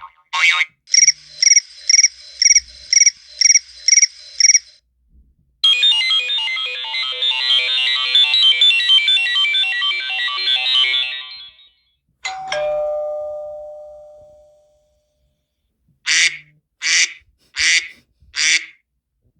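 A series of different iPhone ringtones and alert tones played one after another: about eight quick repeated beeps, then a dense trilling tone lasting about six seconds, then a single chime that rings out and fades, and near the end four short chirps.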